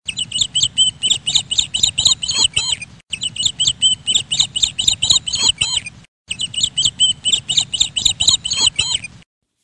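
Rapid, high-pitched chirping, about four chirps a second, over a low rumble. The same three-second stretch plays three times, with a short break between each, and stops just before the end.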